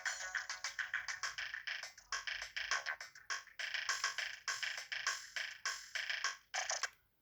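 Samsung SGH-X800 mobile phone playing a polyphonic electronic ringtone: a fast run of short synthesizer-like notes with no bass. It cuts off abruptly near the end.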